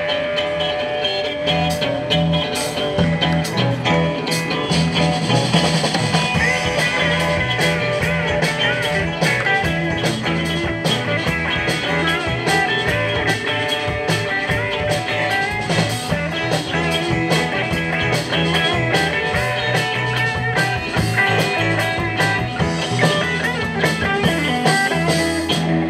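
Live rock band playing a bluesy number: electric guitars over a drum kit and keyboard.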